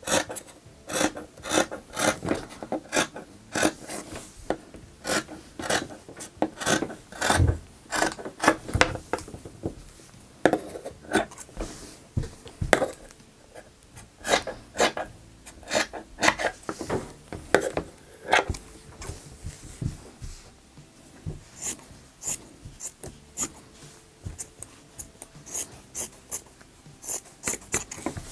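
Scissors snipping through hoodie sweatshirt fabric: a long run of short snips, about two a second, with a brief lull partway through.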